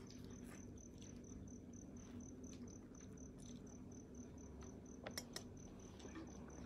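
Near silence: quiet room tone with a faint, evenly pulsing high-pitched trill throughout, and two faint clicks about five seconds in.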